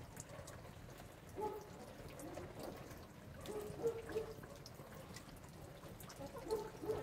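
Rain dripping and pattering steadily, with a few short clucks from chickens about a second and a half in, around four seconds, and near the end.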